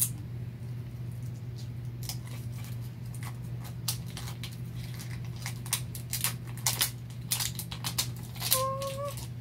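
Plastic wrapping crinkling and capsule shells clicking as Mini Brands toy capsules are peeled and pried open by hand: irregular small snaps and crackles, busiest in the middle, over a steady low hum.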